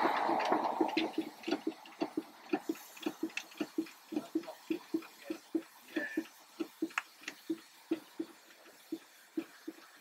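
Steam hissing from a stationary Aveling and Porter steam roller, dying away in the first second, followed by a steady light clacking about four times a second.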